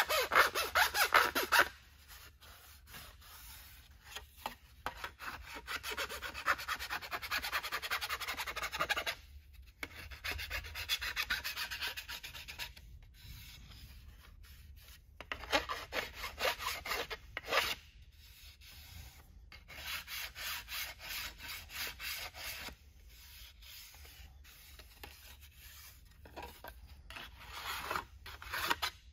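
Flat hand file scraping along the edge of a vacuum-formed plastic part in quick strokes, in several runs of a few seconds with short pauses between. The filing smooths rough spots and jagged edges off the part.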